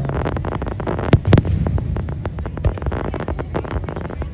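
Fireworks crackling in rapid, irregular pops, with two louder bangs a little over a second in.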